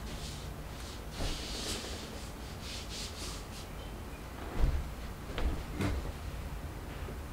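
Soft rubbing and scraping for the first few seconds, then three dull thumps of footsteps on the floor. The orange power tool in hand is not running.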